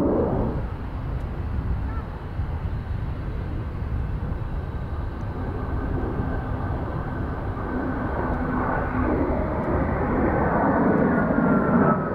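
Military jet engine noise: a steady rumble with a thin whine that slowly falls in pitch over the last few seconds as the jet passes.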